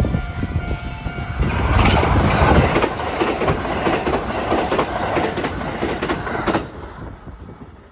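Train passing over a level crossing close by, its wheels clacking rhythmically over the rail joints for about five seconds before the sound fades away. At the start a steady ringing tone of several pitches sounds, cutting off about a second and a half in.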